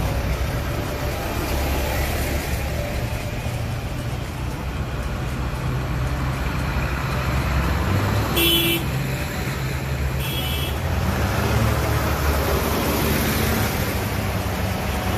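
A line of diesel farm tractors driving past, engines giving a low steady drone that rises and falls as each one goes by. About halfway through, a horn toots twice in short blasts roughly two seconds apart.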